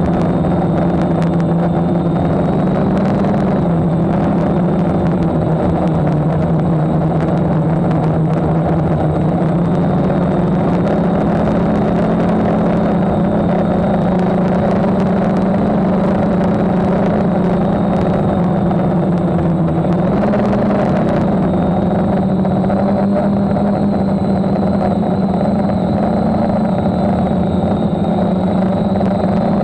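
DJI F550 hexacopter's brushless motors and propellers whirring in flight, heard close up from the camera on its frame: a steady buzzing hum whose pitch shifts slightly a few times as the throttle changes, with a faint high motor whine above it.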